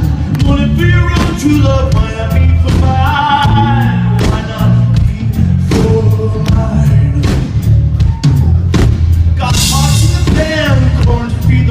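A live band plays a song, with a male voice singing over drum kit and heavy bass, at a steady, even beat.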